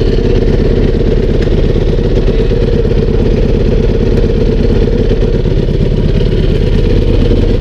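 Enduro motorcycle engine idling steadily, heard from the rider's seat.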